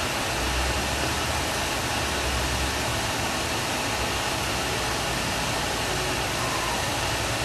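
Beef sinigang broth at a rolling boil in a wide pan on a gas stove: a steady bubbling hiss, with a low hum underneath.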